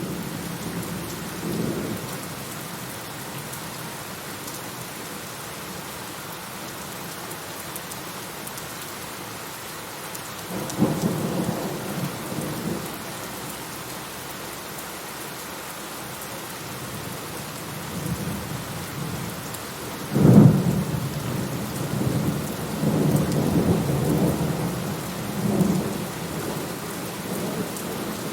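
Steady rain with thunder: a short low rumble near the start and a longer rumble about 11 s in, then a sharp thunderclap about 20 s in, the loudest moment, followed by several seconds of rolling rumble.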